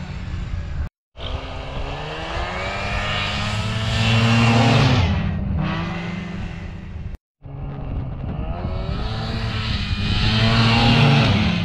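Polaris RMK EVO snowmobile's two-stroke engine revving up and down as it accelerates, the pitch climbing and falling, loudest about halfway through and again near the end. The sound drops out completely twice for a moment.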